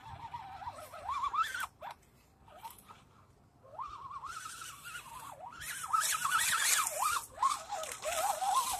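Electric drive motor and gears of a Redcat Gen7 Pro RC crawler whining, the pitch rising and falling with the throttle and dropping out for a moment about two seconds in. From about four seconds in, dry fallen leaves crackle and crunch under its tyres as it drives up close, loudest around six to seven seconds.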